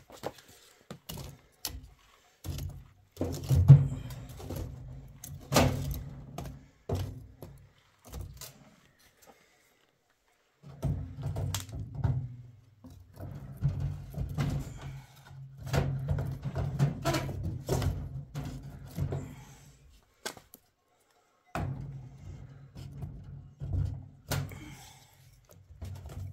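Knocks, clunks and scraping of wood against the sheet-metal firebox as a small wood stove is loaded with logs, in several bursts of handling.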